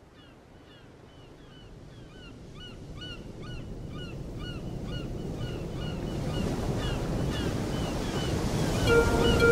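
Ocean surf and wind-like noise fading in from silence and swelling steadily louder, with a quick run of short, repeated bird-like calls, about two or three a second. Near the end, sustained music notes come in.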